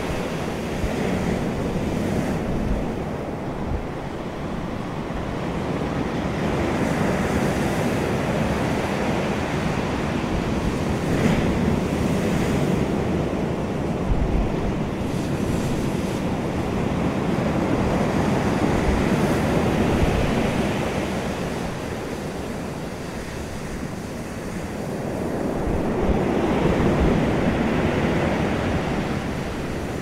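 Ocean waves washing onto a pebble beach, a continuous surf that swells and fades in slow surges every several seconds.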